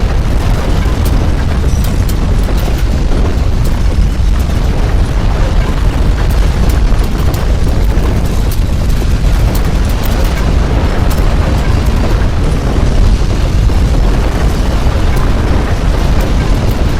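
Earthquake shaking rumble: a loud, continuous deep rumble with crackling and rattling clicks over it, steady throughout.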